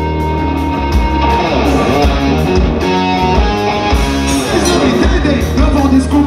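Live rock band playing loudly through a PA: electric guitar over bass and drums.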